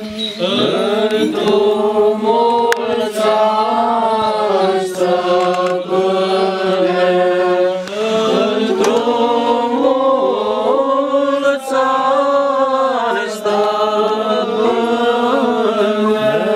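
Orthodox church chant: voices singing a slow, flowing melody over a low held drone note (ison).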